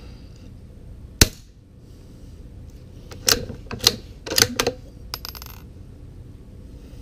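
A .22LR Savage MKII FV-SR bolt-action rifle with a home-built suppressor fires one subsonic round about a second in: a single sharp crack, the loudest sound here, which the meter puts at 85.7 dB. A couple of seconds later the bolt is worked with several quick metallic clicks, followed by a few light metallic ticks.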